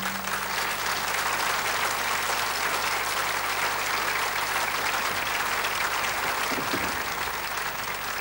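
Large theatre audience applauding, many hands clapping steadily in a dense mass.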